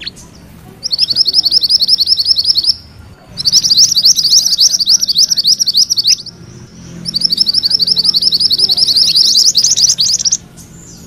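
A mantenan kuning songbird singing its rolling trill ('ngerol'). It gives three long runs of rapid, high, repeated notes, with short pauses between them.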